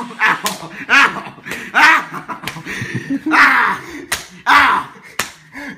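Two people wrestling: breathy grunts and strained laughs come in bursts every second or so, with sharp smacks of hands and bodies between them.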